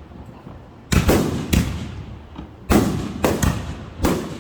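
Fireworks exploding overhead: about six sharp bangs at uneven intervals, each trailing off in an echo, two of them close together near the middle.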